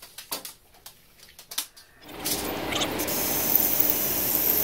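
A few faint ticks and taps, then from about two seconds in a hand-held power tool runs steadily with a high whine, working on a steel strap. The whine stops near the end.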